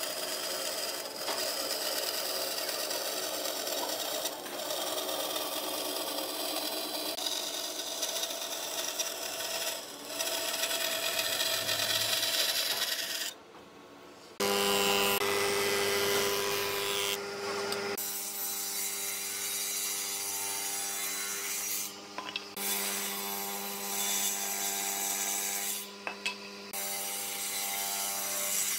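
Bandsaw ripping a pine board along its length, a steady noisy cut. After a short break about halfway, a woodworking machine's motor runs with a steady hum while wood is worked, with a few brief breaks.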